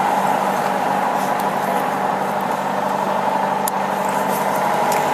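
Steady hum of an idling vehicle engine, with a single light click about three and a half seconds in.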